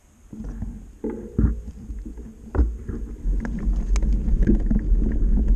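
Mountain bike setting off down a loose gravel trail and picking up speed: a low wind rumble on the bike-mounted camera's microphone grows louder, with clicks and rattles from the tyres on stones.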